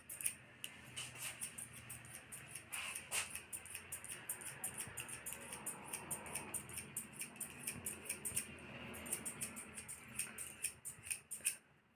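Barber's scissors snipping hair over a comb in a quick, even run of several snips a second. There is a short pause about eight seconds in, and the snipping stops just before the end.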